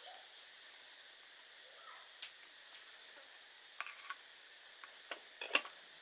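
Light metallic clicks and taps from the aluminium lid of a Vietnamese phin coffee filter being handled and set on top of the filter: a few sharp ticks spread over the seconds, the loudest about five and a half seconds in.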